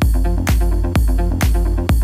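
Electronic dance music: a kick drum on every beat, about two beats a second, over a deep bass line and quick repeating synth notes.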